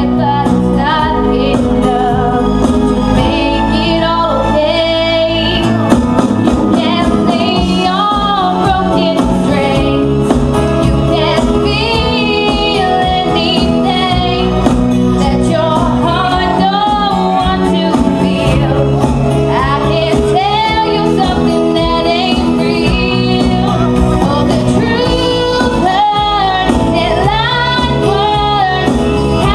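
A woman singing into a handheld microphone over backing music, her voice amplified through the venue's speakers, with vibrato on her held notes.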